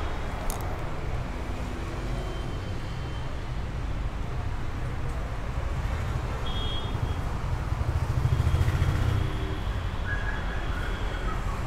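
Toyota Fortuner's 3.0-litre D-4D four-cylinder turbodiesel idling with the bonnet open, a steady low diesel rumble that swells briefly about eight seconds in.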